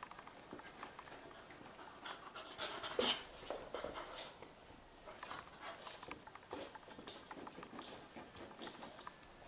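Two Puli dogs play-wrestling: panting and scuffling, with claws clicking and scrabbling on a wooden floor, loudest about three seconds in.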